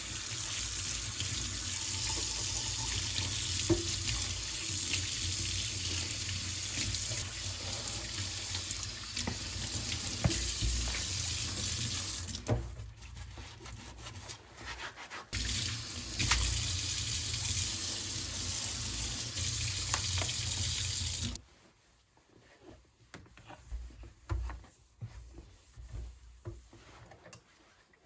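Kitchen tap running into a sink while meat is washed. The water stops about twelve seconds in and starts again about three seconds later. It is shut off with some seven seconds left, leaving light knocks and handling sounds.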